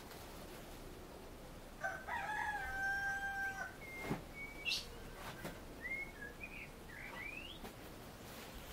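A rooster crowing once, a held call of about two seconds starting about two seconds in, followed by a few short bird chirps and a single click.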